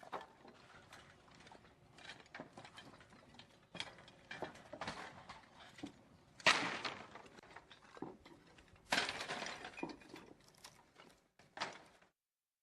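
Irregular knocks, clinks and clattering from house repair work on storm-damaged homes, with louder bursts of clatter about six and a half and nine seconds in.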